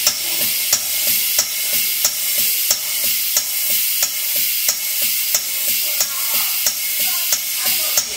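AX-YDA automatic injection machine running as its plunger rod travels: a steady hiss with a sharp click repeating about every two-thirds of a second.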